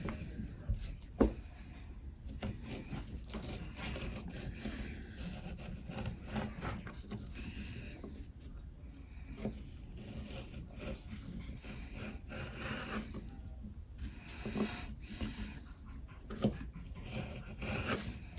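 Kitchen knife cutting peeled green bananas into strips on a wooden cutting board: irregular scraping of the blade through the firm flesh and taps of the blade on the wood. The sharpest taps come about a second in and near the end.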